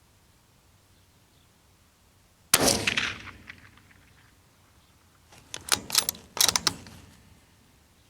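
A .22 Magnum rifle fires one shot about two and a half seconds in, the crack trailing off over about a second. About three seconds later comes a quick run of sharp metallic clacks, the rifle's action being worked.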